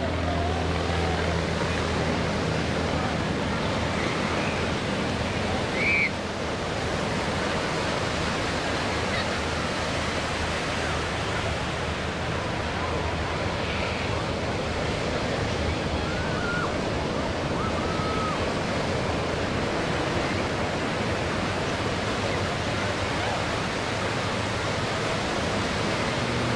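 Steady rushing surf noise, with the distant Pitts biplane's engine fading out within the first couple of seconds and a few faint short chirps over the top.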